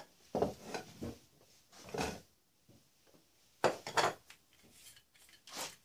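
Black ABS plastic plumbing fittings knocking and clattering on a wooden workbench as they are handled, picked up and set down, in a few short groups of knocks.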